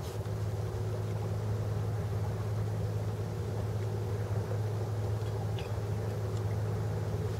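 Steady low engine drone, an even hum that holds one pitch throughout, with a faint click or two a little past the middle.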